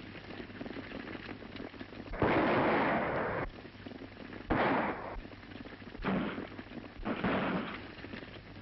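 Four gunshots on an old, narrow-band film soundtrack, each a sudden loud crack with a rough, drawn-out tail, about two, four and a half, six and seven seconds in. The faint patter of galloping horses runs underneath.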